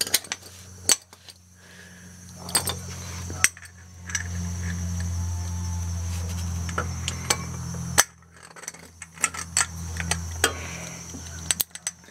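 Scattered metallic clicks and clinks of hand tools as a socket-type oil filter wrench is fitted onto a ratchet. A steady low hum runs underneath and swells twice, from about four seconds in and again near the end.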